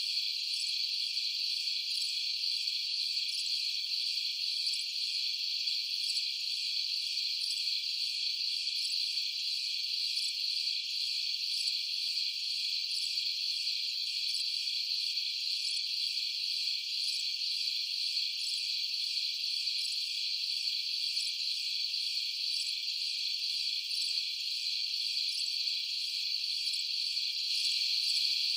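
Dense night chorus of crickets: a steady, high-pitched trilling with fine rapid pulsing above it and no lower sounds.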